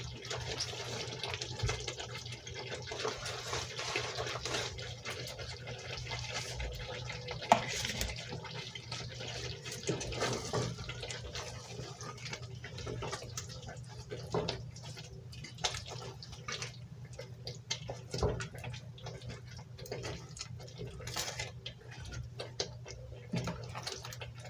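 Pot of matoke and potato stew simmering on the stove: a steady liquid bubbling hiss with scattered small pops and clicks.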